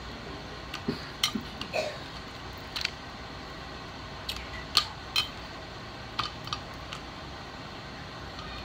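Eating and food-handling sounds: scattered light clicks and taps as food is picked by hand from a glass baking dish of mussels, crab and corn, with a few soft mouth smacks between them.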